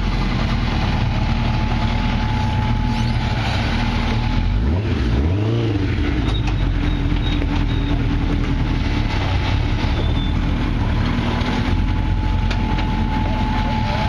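Rock-crawler buggy's engine running steadily under load as it crawls up a rock ledge, with a brief rev that rises and falls about five seconds in.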